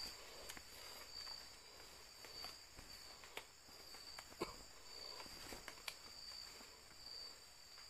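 Faint night insects chirping in a steady high drone, with a few soft clicks or snaps scattered through.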